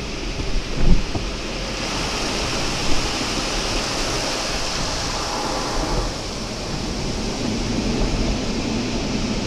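Steady rushing hiss of water spraying at a car wash, brighter and louder from about two seconds in until about six seconds in, with a short thump about a second in.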